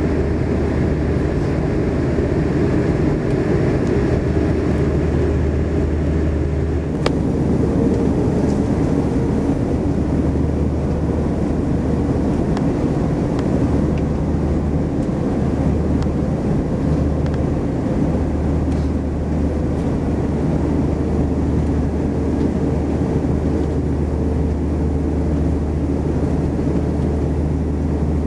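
Cabin noise of an Airbus A340-500 on the ground: its Rolls-Royce Trent 500 engines running at idle, heard inside the cabin as a steady low hum and rumble.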